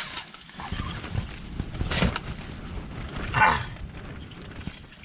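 Rough scraping and rustling as a burbot is hauled up through an ice hole, with a sharp knock about two seconds in and a short grunt-like voice sound about three and a half seconds in.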